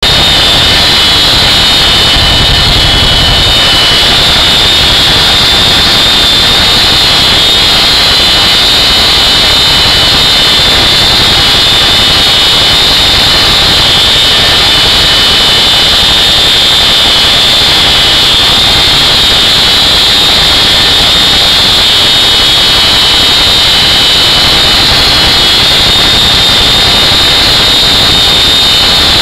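Very loud, steady cabin noise of a CH-47 Chinook helicopter in flight with its rear ramp open: the rush of the twin rotors and turbine engines with a steady high-pitched whine over it.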